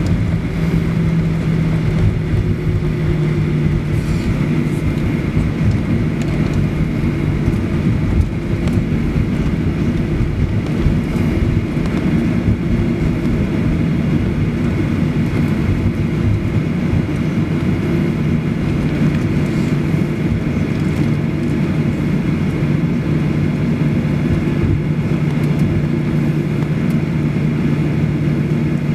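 Cabin noise inside a Boeing 737-800 on the ground before takeoff. The CFM56 jet engines run at low thrust with a steady low hum over the rumble of the airframe, with a few faint clicks.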